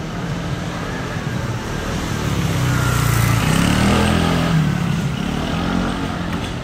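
A motor vehicle driving past: its engine grows louder to a peak about three to four seconds in, then fades.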